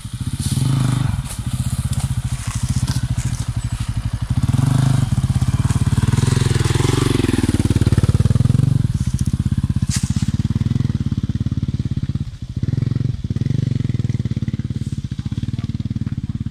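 Off-road dirt bike engine running close by, its revs rising and falling as the throttle is worked over rough forest ground, with two brief drops in revs about three-quarters of the way through. A single sharp crack sounds about ten seconds in.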